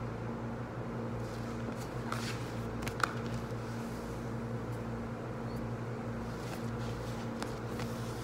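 Steady low machine hum of the kitchen's ventilation, with a few faint soft taps and rubs as hands cup and drag a ball of bread dough across a wooden bench. One sharper tap comes about three seconds in.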